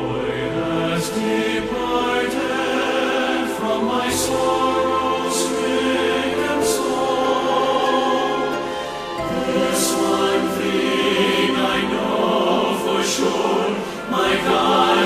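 Christian choral music: a choir singing long held chords over instrumental accompaniment.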